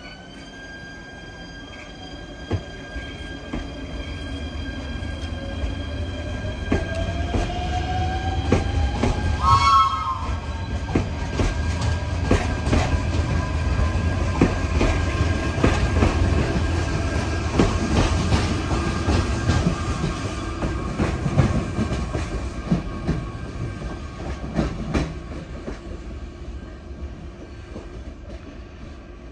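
Electric narrow-gauge panoramic train pulling out of a station: a steady electric whine with a tone that rises in pitch as it speeds up, a low rumble, and wheels clacking over rail joints as the cars pass, with a short warbling high tone about ten seconds in. The sound fades toward the end.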